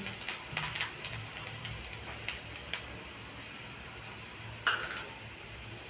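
Finely chopped garlic and a piece of cinnamon frying in hot oil in a kadhai: a quiet steady sizzle with scattered crackles.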